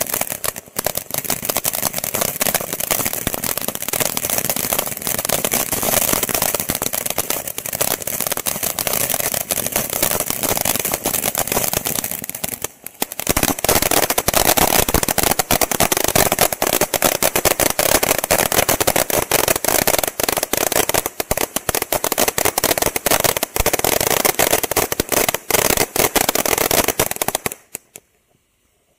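Winda Liberty Fountain (P3203) ground firework spraying sparks with a dense, continuous crackle. After a brief lull a little before halfway it crackles louder, then cuts off near the end as the fountain burns out.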